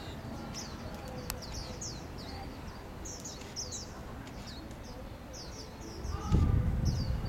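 Birds chirping, many short high chirps in quick succession, over a low rumble that swells briefly near the end.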